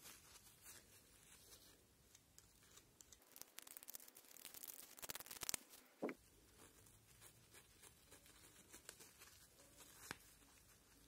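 Faint handling noise of gloved fingers working a small rusty metal speedometer part: soft rubbing and clicks, with a spell of rapid scratching from about three to five and a half seconds in and a short squeak at about six seconds.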